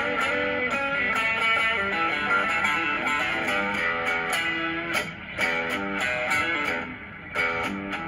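Stratocaster-style electric guitar playing a blues instrumental break: picked single-note lines and short riffs, with bent and wavering notes near the start.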